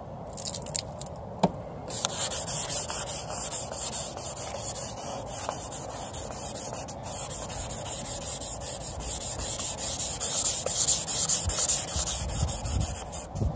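Folded 600-grit wet sandpaper rubbed by hand in quick back-and-forth strokes over a plastic headlight lens, starting about two seconds in and running on steadily. It is the wet-sanding stage of headlight restoration, taking the surface stains off the lens.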